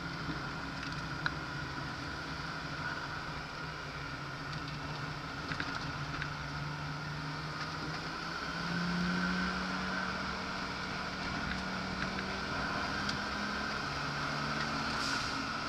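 Nissan Skyline's engine running hard on a race track, heard from inside the cabin over steady road and wind noise. The engine note shifts in pitch through the lap and swells louder about halfway through.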